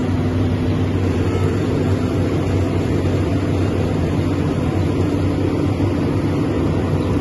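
Heavy-equipment diesel engine running steadily at idle, an even low hum with no change in pitch.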